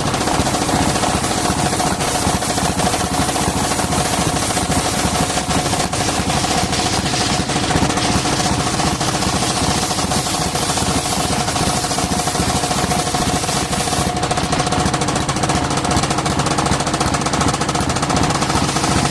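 Engine-driven circular saw of a small sawmill running steadily: the engine's rapid, even firing under a steady whine.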